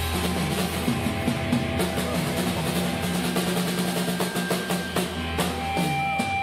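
Background music with a drum kit playing throughout.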